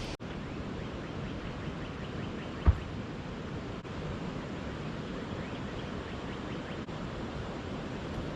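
Steady rushing of a waterfall, with one brief low thump about a third of the way through.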